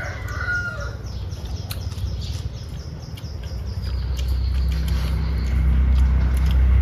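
A rooster's crow trails off in the first second over small birds chirping, then a low engine rumble with a steady hum grows louder from about four seconds in, as of a vehicle drawing near.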